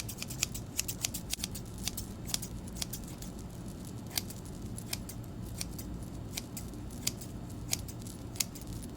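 Metal hair-cutting scissors snipping in irregular, quick crisp clicks, several a second, over a low steady hum.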